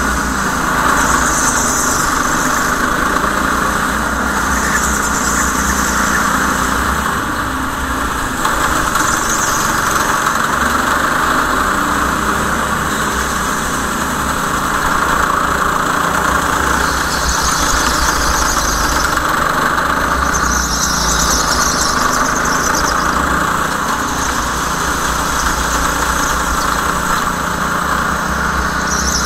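Racing go-kart running steadily at speed, with short bursts of tyre squeal every few seconds through the corners.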